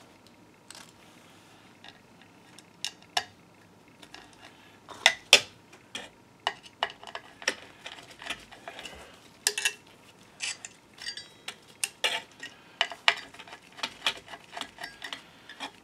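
Irregular sharp metal clicks and clinks as a small spring-loaded steel stage clip is fitted and fastened into the metal base plate of a microscope stand. The clicks start a couple of seconds in and come several a second toward the end.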